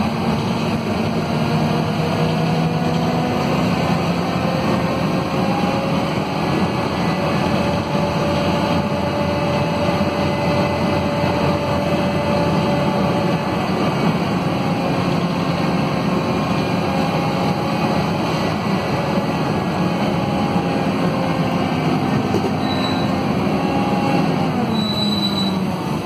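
Scania DC9 five-cylinder diesel of a city bus heard from inside the passenger cabin while under way: a steady, loud rumble mixed with rolling and body noise. Near the end a faint tone in the rumble drops in pitch as the engine slows.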